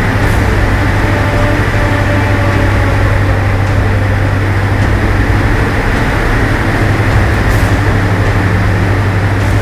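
Diamond DA42 Twin Star's two propeller engines droning steadily in flight, heard inside the cockpit as a loud, even low hum with airflow noise over it.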